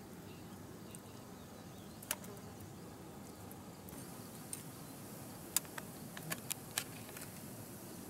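Knife blade clicking and ticking against small fish as they are scaled and cleaned by hand: a single click about two seconds in, then a quick run of several sharp clicks a little later, over a faint high hiss.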